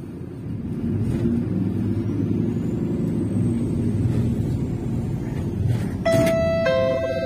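Rumble of a MAZ-203 city bus's engine and running gear heard from inside the cabin as the bus drives, getting louder about a second in. Near the end the bus's onboard announcement chime starts, a few steady electronic notes that step to a new pitch partway through.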